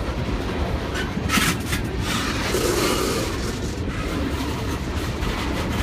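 Tank cars of a Norfolk Southern freight train rolling past close by: steady rumble of steel wheels on rail, with a short burst of sharper metallic noise about a second and a half in.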